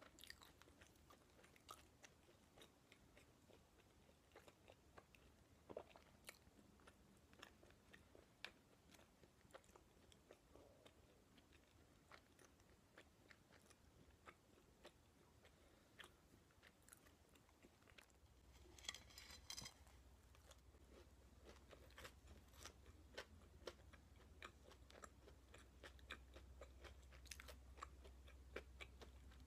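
Faint, close-up chewing by a person eating: many soft mouth clicks. About two-thirds of the way through there is a short, denser crunchy rustle.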